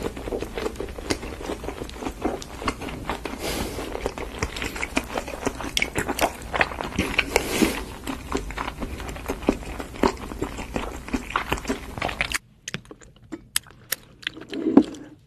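Close-miked eating: dense, irregular wet chewing, biting and mouth clicks of a person eating seafood. About twelve seconds in the background hum cuts out suddenly, leaving only a few scattered soft mouth clicks.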